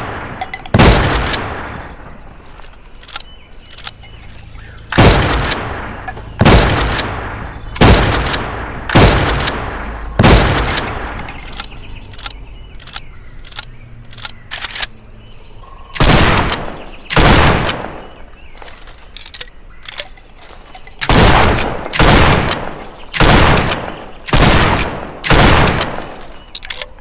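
Trench gun (pump-action shotgun) firing about a dozen single shots, in runs a second or so apart with pauses of several seconds between runs; each blast has a long fading tail.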